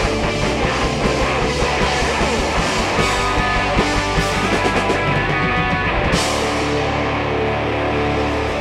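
Live rock-country band, with two overdriven electric guitars, bass guitar and drum kit, playing an instrumental passage. About six seconds in the band hits a chord together and lets it ring.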